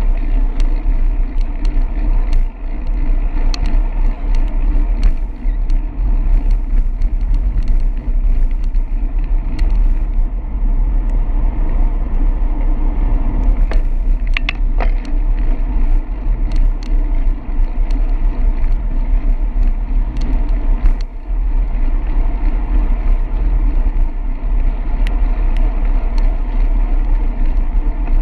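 Wind buffeting the microphone of a handlebar-mounted camera on a moving bicycle, with the tyres running on wet pavement: a steady loud rumble with scattered small clicks.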